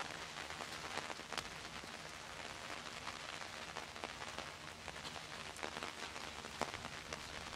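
Rain falling on wet cobblestones and paving: a steady rustling hiss with scattered ticks of individual drops.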